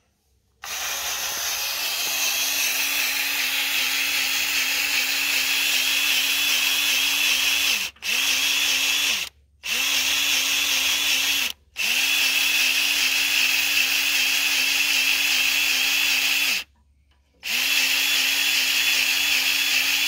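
Cordless battery-powered grease gun running, its motor whining steadily as it pumps grease into the backhoe joystick's control valve. It runs for several seconds at a time and stops briefly four times.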